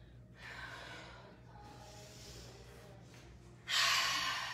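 A woman's breathing during a floor exercise: a faint breath about half a second in, then a loud, sharp breath starting suddenly about three and a half seconds in and fading away.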